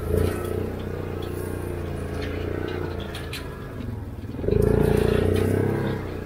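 ATV engine running under way, revving louder for about a second and a half from about four and a half seconds in, with scattered rattles and clicks.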